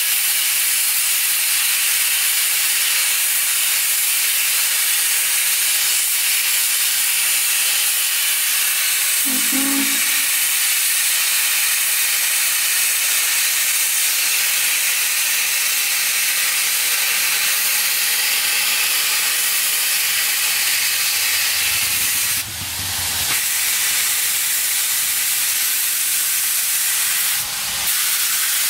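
Norfolk and Western Class J 611 steam locomotive venting steam from its cylinder cocks, a steady loud hiss. The hiss briefly drops twice near the end.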